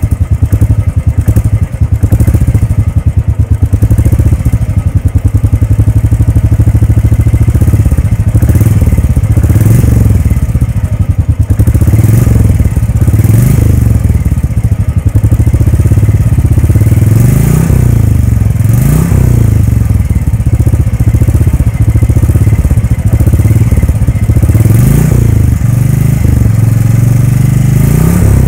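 Royal Enfield Bullet 350's single-cylinder engine idling with its steady exhaust thump. The throttle is blipped several times in the second half, the note rising and falling each time.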